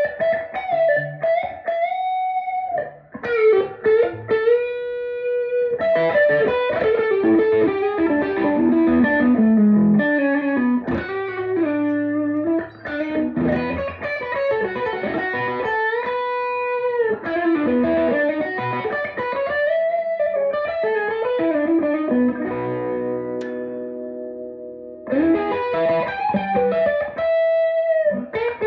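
A 1965 Gibson SG electric guitar played through an amplifier: single-note lead lines with bent notes that rise in pitch, several held notes, and a sustained chord a little over two thirds of the way through.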